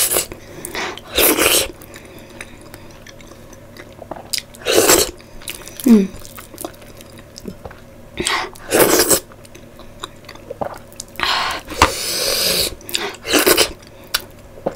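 A person chewing and eating close to the microphone: separate bursts of chewing and mouth sounds every one to three seconds, with a longer run of chewing about twelve seconds in.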